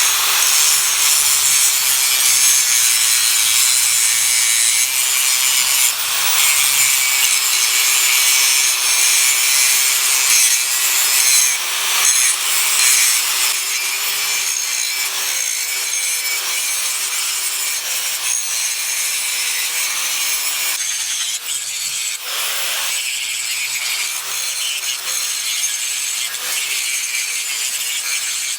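Angle grinder grinding down the steel of a battered Hay Budden anvil, a continuous grinding rush over the motor's steady whine. This is the surface preparation before the chipped edges are rebuilt with weld. The sound thins out a little after about twenty seconds.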